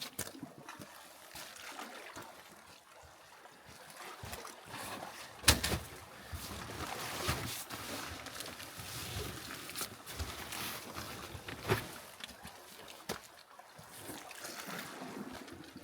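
Water sloshing and splashing at the shoreline around a small skiff, with a few hard knocks. The loudest knock comes about five and a half seconds in, and two smaller ones come later.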